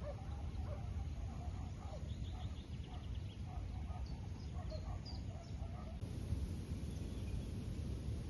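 Birds calling and chirping in the open over a steady low rumble. A short rapid trill and a few high chirps come in the middle, and the bird calls thin out about six seconds in.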